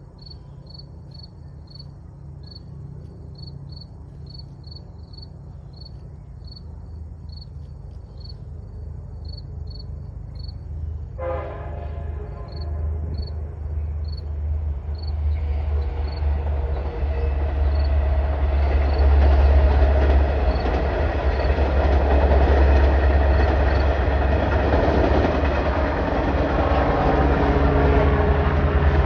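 Long Island Rail Road diesel train approaching over a deep engine hum that grows steadily louder. It sounds its horn about eleven seconds in, then passes close by with a loud rumble of engine and wheels on the rails. Crickets chirp steadily in the first half.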